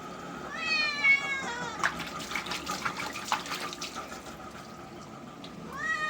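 A cat being bathed meows twice: one long meow falling in pitch about half a second in, and a shorter one near the end that rises and then falls. Water splashes and drips between the meows.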